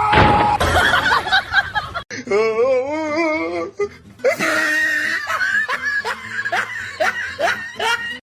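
People laughing in a run of short, repeated bursts through the second half, with a wavering drawn-out voiced sound in the middle.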